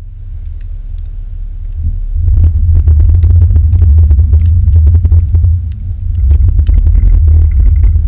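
Low rumble of a Chevrolet Silverado pickup driving on a snow-covered road, picked up by a camera mounted low on the outside of the truck. It grows louder about two seconds in and stays heavy, with a short dip near the two-thirds mark.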